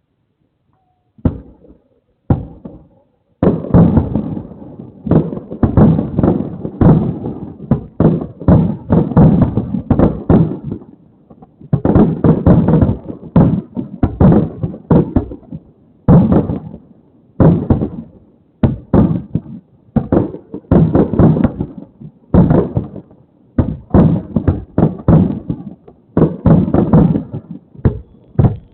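Fireworks shells bursting overhead: a few single bangs about a second in, then a near-continuous barrage of booms, each with a rumbling tail. Heard through an outdoor security camera's small microphone, which cuts off the highs.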